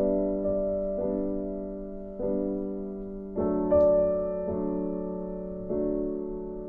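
Background piano music, slow and gentle: soft chords struck about once a second, each fading before the next.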